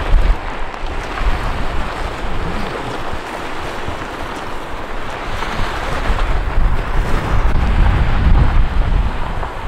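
Continuous rough rushing noise with heavy wind buffeting on the microphone, as a person in motorcycle gear is dragged across coarse, gravelly asphalt behind a car on tow ropes.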